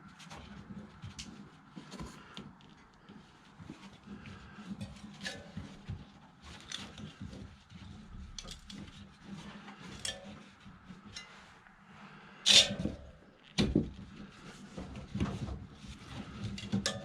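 Scattered light clicks, clinks and knocks of tools and pipe parts being handled during plumbing work, with two louder sharp knocks about a second apart near the end.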